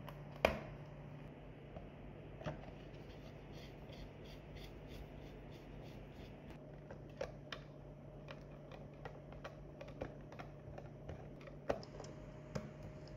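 Screwdriver turning screws into the plastic base of a landline desk phone: faint, irregular clicks and small scrapes of the bit in the screw heads. A sharper knock comes about half a second in, and a steady low hum runs underneath.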